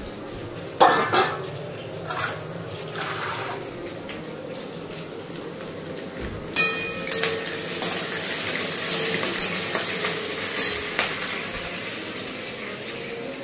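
Steel kitchen utensils and dishes knocking and clinking, a few knocks about a second in, then a run of clinks from about six seconds in over a hiss of vegetables frying in a pan that fades near the end.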